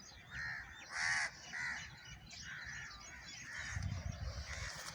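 Crows cawing: a string of about six short, harsh calls spaced half a second to a second apart, with fainter small-bird chirping behind.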